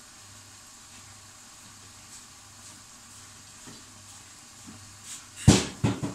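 Liver cooking in a pan, sizzling faintly and steadily over a low hum. Near the end come a few loud clattering knocks.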